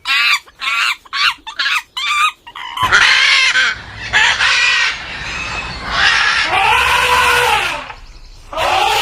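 Chickens clucking in a quick run of short calls, followed by longer drawn-out calls.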